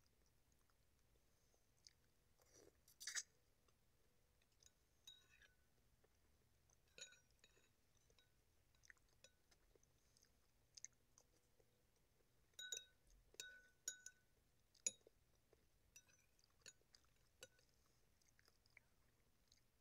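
Faint, scattered clinks of a metal spoon against a ceramic soup bowl, with quiet chewing between them; the clinks cluster about three seconds in and again in the second half.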